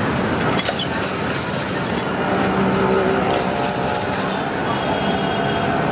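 Hand-operated cast-iron ice-shaving machine rasping shavings off a clamped block of ice, in two scraping spells of about a second each, over steady street traffic noise.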